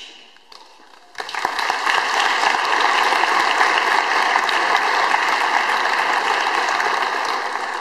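Audience applauding: dense clapping starts abruptly about a second in, holds steady, and begins to die away near the end.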